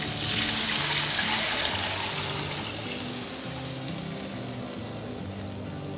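Thin coconut milk poured into a wok of hot fried spice paste: a splashing, sizzling pour, strongest in the first couple of seconds and dying down as the liquid covers the pan. Background music plays throughout.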